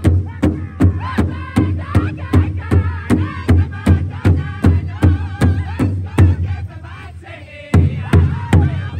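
Powwow drum group singing together while striking a large shared drum with drumsticks in a steady beat, about three strikes a second. About six seconds in, the drumbeat drops out for a second and a half, then comes back in with the singing.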